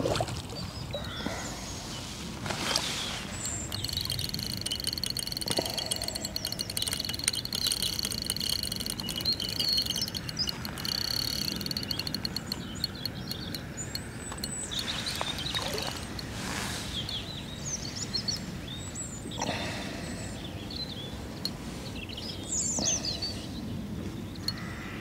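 Fixed-spool fishing reel ticking in a fast, even run of clicks for several seconds while a hooked carp is played on the rod. Small birds chirp now and then.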